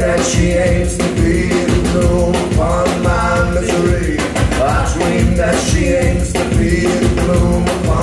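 A live rock band playing a song: a drum kit keeping a steady beat under bass and a wavering melodic line.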